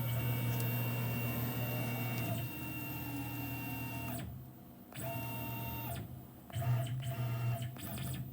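Tormach 1100M CNC mill's axis motors whining as the machine is jogged under controller control, in several separate moves that start and stop, the pitch changing between moves.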